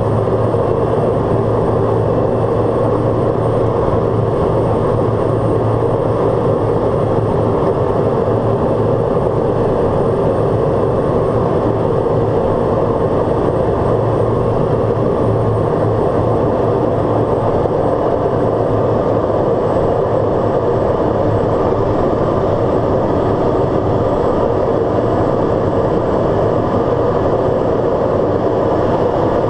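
Steady drone of a Pilatus PC-12's single Pratt & Whitney PT6A turboprop engine and propeller, with a thin high whine that drops slightly in pitch about two-thirds of the way through.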